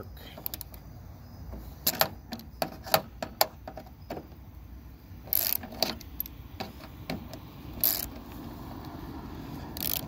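Hand ratchet and socket clicking in short, irregular runs while bolts of a door latch striker plate are turned, with metal tool clatter and scraping in between.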